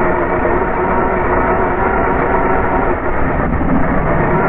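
Remote-control car driving, heard from a camera mounted on it: a steady motor whine under loud, rough rumbling from the tyres and chassis.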